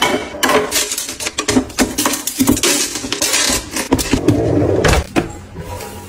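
Clear acrylic dividers and handbags being handled and set into a wardrobe drawer organizer: a quick run of light plastic clicks and knocks with rustling, easing off after about five seconds.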